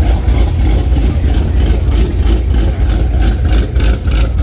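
Chevrolet Camaro's aggressively cammed V8 idling with a choppy, loping beat, the sign of a big aftermarket camshaft.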